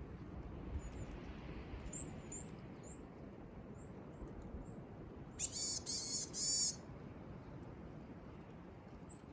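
Wild birds calling: a few faint high chirps, then three louder, harsher calls in quick succession about five and a half seconds in.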